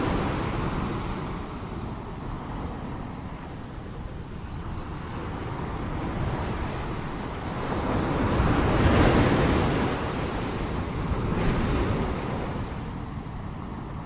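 Ocean waves washing against a shore in a steady rush. One wave fades away at the start, then a bigger wave swells and breaks about nine seconds in, followed by a smaller one near the end.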